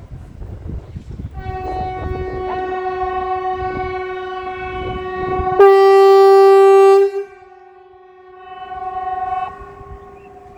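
Kockums Supertyfon TA 75/380 pneumatic horn sounding its steady 380 Hz warning tone. It comes in about a second in, jumps suddenly to full loudness for about a second and a half past the middle, then drops back to a weaker tone that swells and fades again. This is a faltering, failing blast that the owner puts down to a bad valve or relay.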